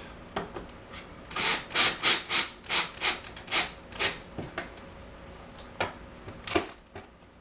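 A hand tool turning screws by hand on a washer door hinge: about ten quick rasping strokes, roughly three a second, then a couple of sharp clicks near the end.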